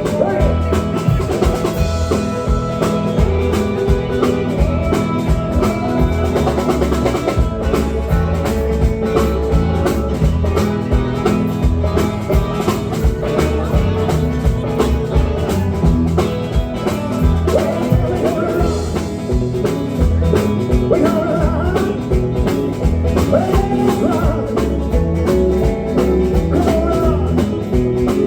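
Live rock and roll band playing an instrumental break: guitar with bending notes over a steady drum kit and bass beat.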